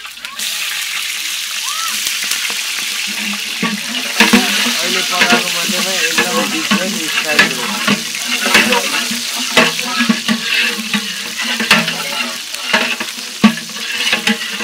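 Long-handled ladle stirring water in a large aluminium pot, the water sloshing and hissing, with the ladle knocking repeatedly against the pot's sides from about four seconds in.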